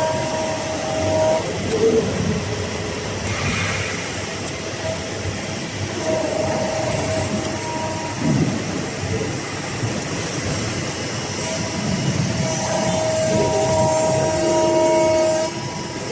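Hydraulic press brake running: steady machine noise with a whine from its hydraulic drive that comes and goes three times, the longest stretch about three seconds near the end.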